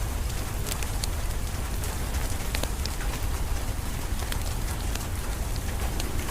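Steady rain mixed with a wood fire crackling: scattered sharp pops and clicks over an even hiss, with a steady deep rumble underneath.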